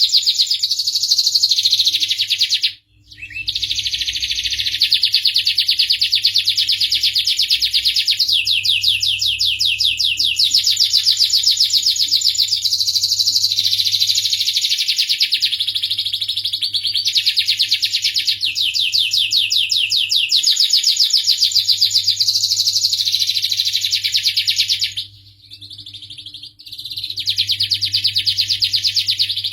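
Domestic canary singing long runs of rapid trills, broken by short pauses about three seconds in and again near the end.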